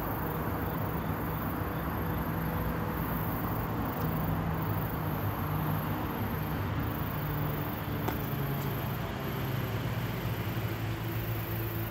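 Steady outdoor background noise: an even hiss with a faint wavering low hum of distant traffic.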